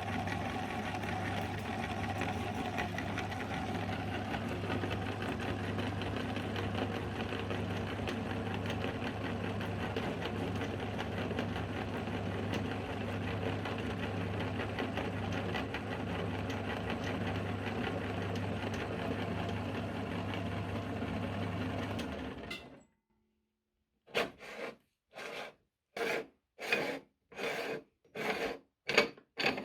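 Electric meat grinder running steadily, its motor humming under a rasping, rubbing noise as it grinds kiwi fruit, then switching off abruptly. After that, near the end, come a string of short separate sounds, about one every 0.7 s.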